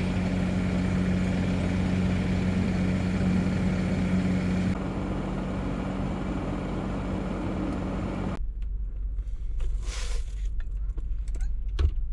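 Motor vehicle engine idling with a steady low hum for about eight seconds, then cut off abruptly. A quiet stretch follows, with a few small clicks, a brief rustle and a light knock near the end.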